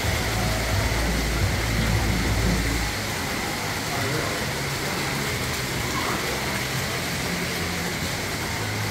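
Busy city street ambience: a steady wash of noise, with a low engine rumble of passing traffic that is strong for the first three seconds and then fades.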